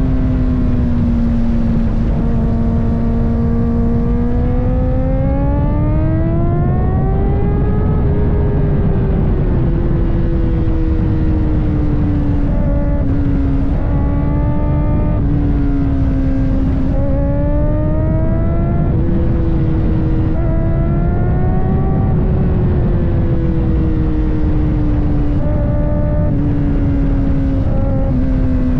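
Kawasaki ZX-4RR's 399 cc inline-four engine running under way, its note sweeping slowly up and down with the throttle, with several short quick rises. Heavy wind rush on the microphone lies beneath it.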